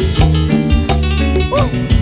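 Instrumental passage of a Mexican grupero band: bass and drums keep a steady beat under the other instruments, with no singing.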